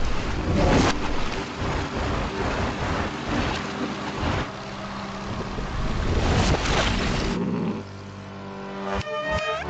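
Cartoon sound effect of a small bulldozer's engine running and rumbling as it churns up the ground, a dense noisy din. About seven seconds in it drops away to a quieter steady hum, and near the end a wavering pitched sound begins.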